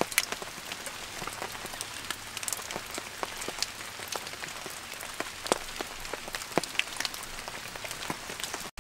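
Raindrops pattering on leaves and a tarp at the tail end of a heavy rain: a steady hiss with irregular sharp drip ticks.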